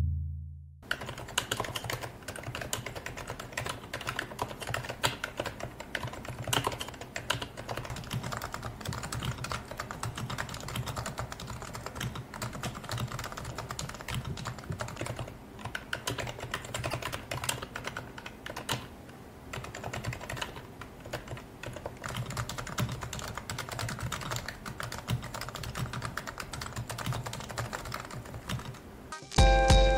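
Fast, continuous typing on Realforce Topre (electrostatic capacitive) keyboards: a dense run of soft key presses that starts about a second in, with a brief lull near the middle.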